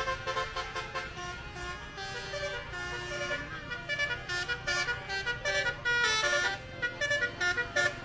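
A coach bus's "telolet" musical air horn playing a quick tune of changing notes, with short repeated blasts in the last few seconds, over the bus engine's steady low running.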